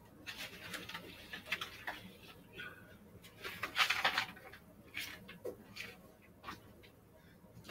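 A stack of papers and books being pulled off a wooden shelf and handled: irregular rustling and shuffling, loudest about four seconds in, followed by a few light knocks.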